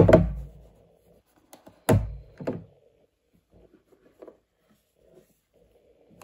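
Hard plastic watch case being handled: a loud thunk at the start and two more knocks about two seconds in, then faint small clicks as it is unlatched and opened.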